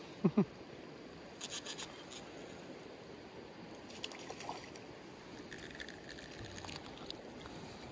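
Creek water running over a shallow riffle, with a hooked trout splashing and thrashing at the surface in short bursts about a second and a half in and again around four seconds in. A brief two-note voice sound, the loudest thing here, comes right at the start.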